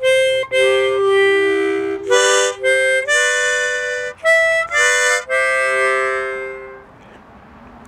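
A small harmonica played as a short tune of held notes, often two sounding together, changing every half second or so; the last note trails off about seven seconds in.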